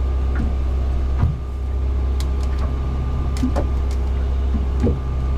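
Steady low machine hum, with a few light clinks as a ceramic mug is handled.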